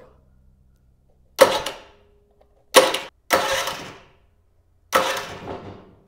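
Electric starter motor on a small Honda GX-clone engine, energised through a jumper cable at the solenoid, spinning the engine over in four short bursts. Each burst cuts in sharply and dies away within about a second.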